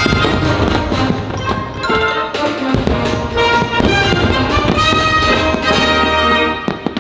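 Patriotic orchestral soundtrack with prominent brass playing loudly, with sharp firework cracks scattered through it and a few close together near the end.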